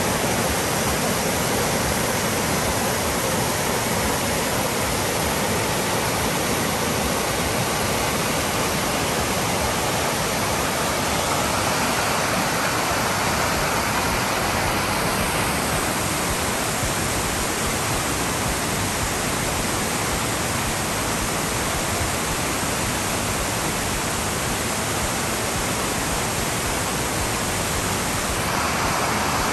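Amicalola Creek's white water rushing down rocky cascades: a steady, unbroken rush of falling water.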